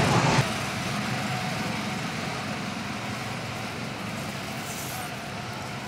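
Steady outdoor ambient noise with no voices. A louder stretch of the same kind of noise cuts off suddenly after about half a second and the quieter background carries on.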